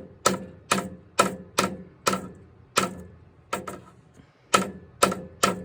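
About a dozen sharp knocks at an uneven pace, roughly two a second, each with a short ringing after it.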